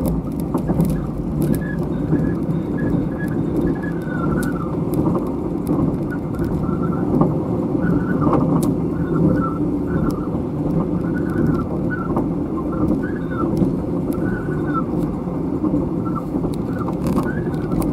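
Running noise inside a State Railway of Thailand overnight sleeper coach: a steady rumble of wheels on rail, with short squeaks coming and going about once a second and scattered light clicks.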